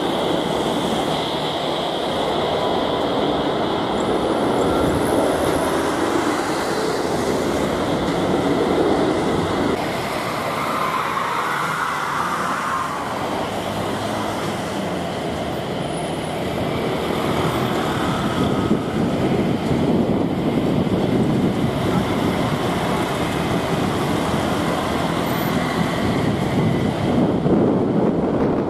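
Jet airliner engines running on the ground, a steady rumble with a high whine in the first part: an AirAsia Airbus A320-214 with CFM56 engines rolling down the runway after landing, then, after a cut about ten seconds in, a Vietnam Airlines Airbus A321-231 with IAE V2500 engines taxiing past.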